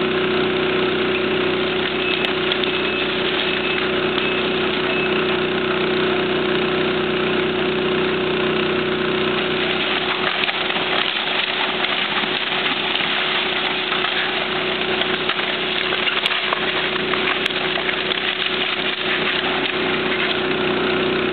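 Hydraulic excavator's diesel engine running steadily as its bucket tears apart a wood-frame house, with crunching and cracking of debris that grows busier from about halfway on. An alarm beeps steadily at one pitch for the first few seconds.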